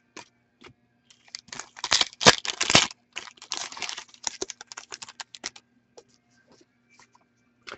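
Trading cards and their packaging being handled: a wrapper crinkling and tearing along with quick clicks and flicks of cards. The activity is loudest about two seconds in and thins to scattered ticks after about five and a half seconds.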